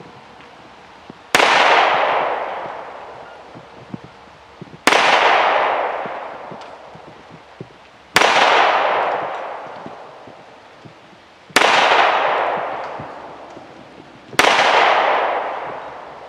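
Five single pistol shots fired one-handed, spaced about three to three and a half seconds apart, each followed by a long fading echo. They are the five dominant-hand-only rounds of a one-handed shooting drill.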